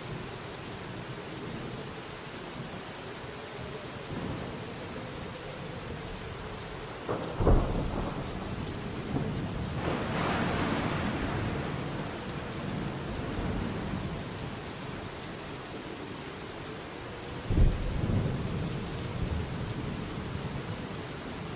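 Steady rainfall in a thunderstorm. A sharp thunderclap comes about seven seconds in and rumbles on, and a second clap comes a few seconds before the end.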